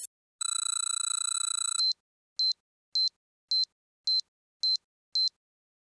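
Electronic sound-effect tones: a steady buzzing electronic tone for about a second and a half, then a run of about seven short high beeps, roughly two a second.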